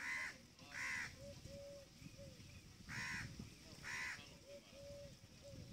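A crow cawing four times, in two pairs about a second apart, with faint short whistled notes between the caws.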